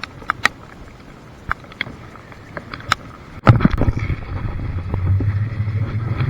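Handling noise in a small fishing boat: scattered sharp clicks and taps, then a sudden knock about three and a half seconds in, followed by a steady low hum.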